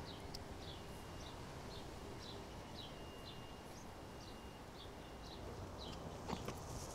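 Faint bird chirping: short falling notes about twice a second, over a low steady background rumble.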